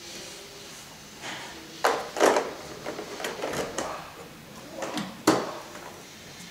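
Samsung VCC5135 vacuum cleaner being handled, with its parts knocking and clicking into place: a few sharp clicks and knocks, the loudest about two seconds in and again near five seconds. The motor is not running.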